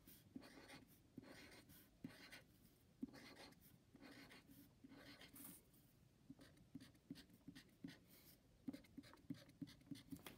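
Black marker tracing over pencil lines on paper: faint scratchy strokes, turning into quick short strokes near the end as small circles are drawn. The marker is starting to run out of ink.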